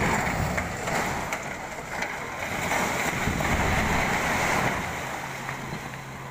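Old concrete water tower collapsing: a loud rushing rumble of crumbling concrete and falling debris that starts suddenly, holds for about four seconds and dies down near the end.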